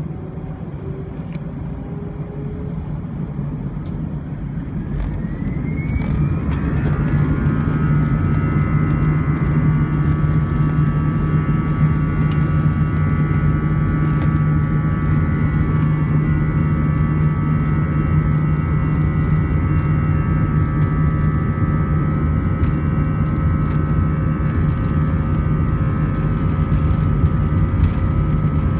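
Airbus A320-200 jet engines heard from inside the cabin over the wing, spooling up to takeoff thrust: a whine rises in pitch about five seconds in and the sound grows louder, then settles into a steady loud drone with high whining tones through the takeoff roll.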